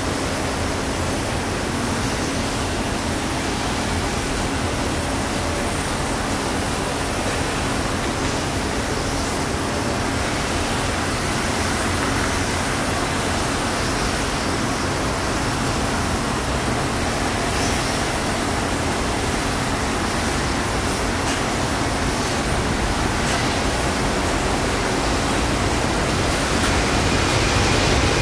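Twin jet engines of a Boeing 767-300ER at taxi power, a steady distant rush with a faint hum, growing louder near the end as thrust comes up for the takeoff roll.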